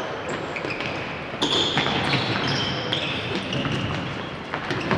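Futsal game on a wooden sports-hall floor: short high squeaks of players' shoes and a couple of sharp ball knocks, in an echoing hall.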